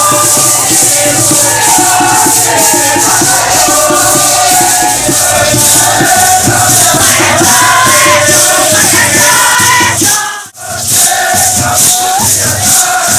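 A group of voices chanting together over maracas shaken in a steady beat. The sound breaks off for an instant about ten seconds in, then carries on.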